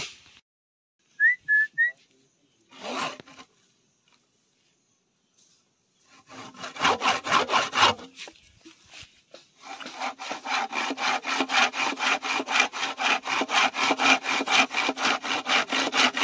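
Hand saw cutting through a green bamboo culm: a short bout of back-and-forth strokes, a pause, then steady rapid strokes, about four a second.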